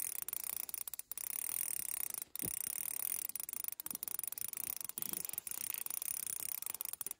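Fishing reel clicking very rapidly and continuously, stopping briefly a few times, while a large fish is played on the line.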